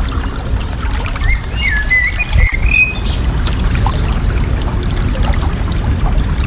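Water flowing and babbling steadily, with a bird singing one short warbling phrase about a second and a half in.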